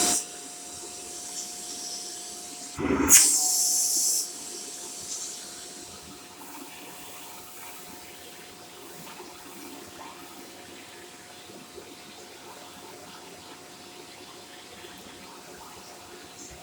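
Shark corded Lift-Away vacuum cleaner running, its motor giving a steady whine under a rush of air. About three seconds in the airflow swells loudly for a second or so, then settles back to a quieter running sound.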